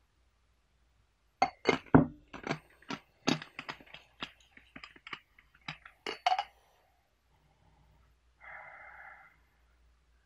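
Dry loose tea leaves tipped from a foil sheet into a glass teapot: a quick, irregular run of small clicks and clinks against the glass for about five seconds. Near the end there is a brief faint rustle.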